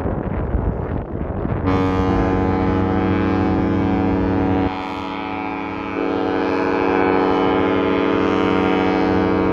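Cruise ship Emerald Princess's horn sounding one long, steady blast that starts about two seconds in, with a short drop in level midway; wind buffeting the microphone before it.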